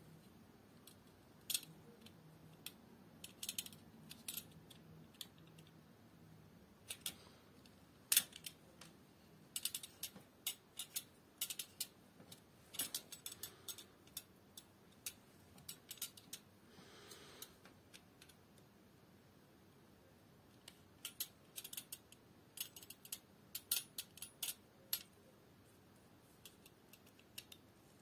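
Snap-off utility knife cutting and scraping the sheath of a power cord, with irregular sharp clicks and ticks from the blade and the handling, and a short scrape a little past the middle.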